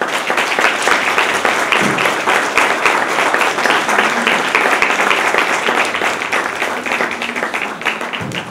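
Audience applauding: a dense patter of many hands clapping that starts all at once and eases slightly near the end.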